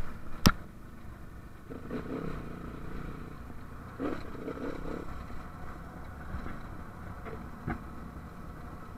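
AJP dirt bike's engine running steadily while riding, with a sharp knock about half a second in and brief rattling around two and four seconds.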